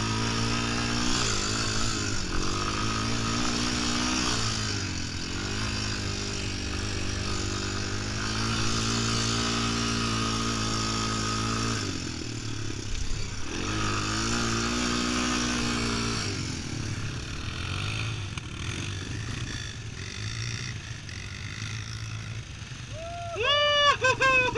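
ATV engine running under throttle while the quad rides over sand, its pitch rising and falling with the throttle and easing off about halfway through and again in the last third. A brief high-pitched squeal near the end is the loudest sound.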